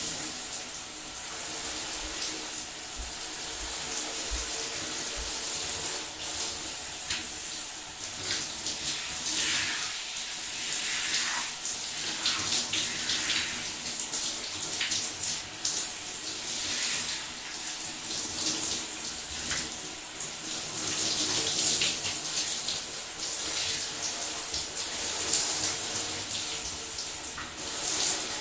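A shower running with someone under it: a steady spray of water with splashes that keep shifting and swelling as the water breaks over the body.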